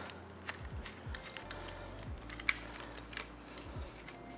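Light, irregular clicks and taps of an aluminium tripod's twist leg locks being unscrewed and its leg sections pulled out, with a few soft handling thumps.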